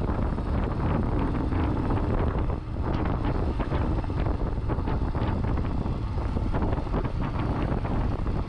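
Royal Enfield motorcycle running at road speed, its engine heard under heavy wind buffeting on the rider's camera microphone.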